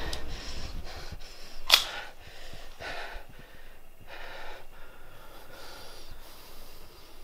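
A person panting heavily, several breaths in a row, with one sharp knock about two seconds in.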